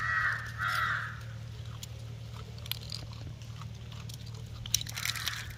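Two short high puppy whines in quick succession near the start, then scattered small clicks and knocks, like paws and mouthing, over a steady low hum.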